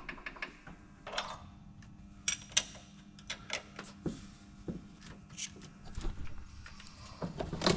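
Scattered light metallic clicks and taps of a spanner working on the rocker arms and valve adjusters of a Scania V8 diesel with its rocker covers off, during a top-end valve setup, over a steady low hum.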